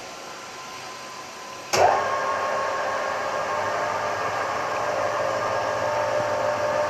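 Lathe spindle and electric motor running with a steady hum of several held tones. Just under two seconds in there is a click and a sudden jump to a much louder run as the lathe steps up in speed, and it then runs steadily, slowly getting louder.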